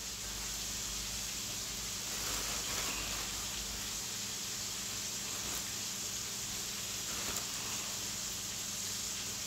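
Steady, even hiss with a low hum underneath.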